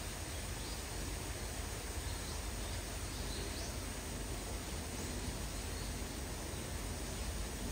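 Steady hiss of light rain with a low background rumble and a few faint high chirps.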